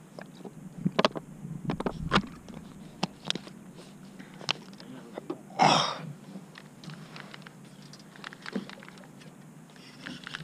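Handling noise in a small fishing boat: scattered light clicks and knocks as a plastic bag and a water bottle are handled, with one short, louder rasp just over halfway through.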